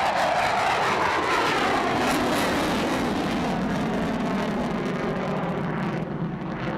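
F-15 jet fighter's twin engines, a loud, steady jet noise whose pitch slowly falls as the aircraft climbs away. About six seconds in, the upper hiss thins out suddenly.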